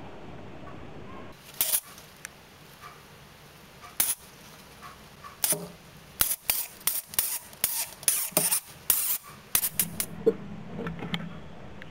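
Hamster cage bedding rustling and crackling in short dry bursts as hamsters move through it. The bursts are sparse at first, then come about three a second from about six to ten seconds in.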